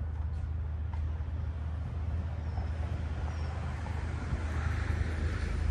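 Steady low rumble of a motor vehicle under way, with a noisy rushing haze over it that swells into a louder hiss about four to five seconds in.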